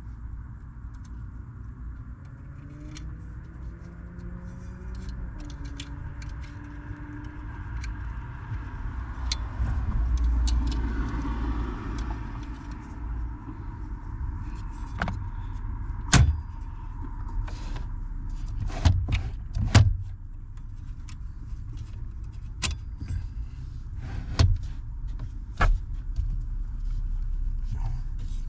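Hand tools and metal parts being worked on a car: scattered sharp clicks and knocks over a steady low hum, the clicks coming more often in the second half.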